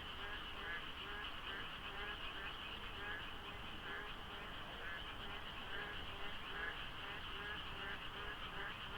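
A dense chorus of many frogs calling at once, with overlapping calls so that the number of frogs is hard to judge. Short calls repeat about twice a second over a constant shrill trilling, with a faint low hum underneath.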